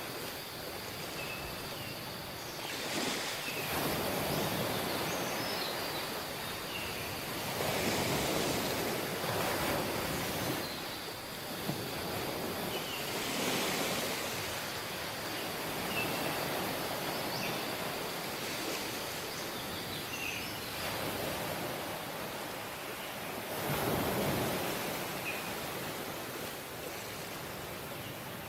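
Sea waves breaking and washing up on a beach, the surf swelling and easing every few seconds, with faint short chirps scattered over it.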